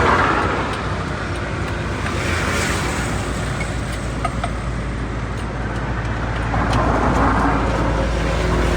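Road traffic: a motor vehicle engine running steadily over road noise, the noise swelling a little near the end, with a few faint clicks.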